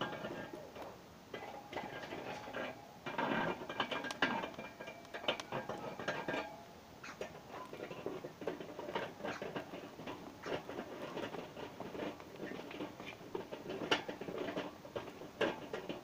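Irregular taps, clicks and scraping from a thin rod being worked against a hard surface.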